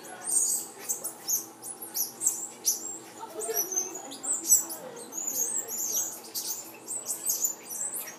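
Central American squirrel monkeys giving rapid, high-pitched squeaks and chirps, several calls a second, overlapping irregularly.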